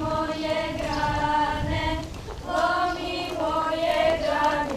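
Girls of the Pentecost kraljice procession singing their traditional song together in two long, drawn-out phrases, with a short break about two seconds in.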